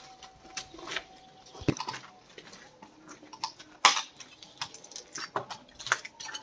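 Scattered clicks, clinks and knocks of people moving about among burnt debris, the loudest a sharp knock about four seconds in.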